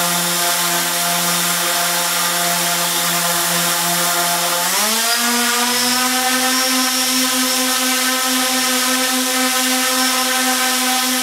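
Four Sunnysky X2212 980Kv brushless motors of a quadcopter running at a steady throttle with a whining hum, then rising quickly in pitch about five seconds in as the throttle is stepped up from about half to about three-quarters, and holding there. The motors are being run up in stages under load for a compass interference calibration.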